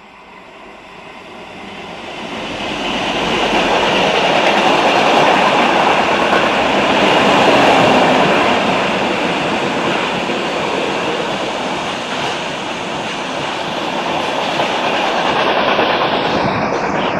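A Renfe train approaching and running past, its wheels rumbling on the rails; the sound builds over the first four seconds and stays loud as the train goes by.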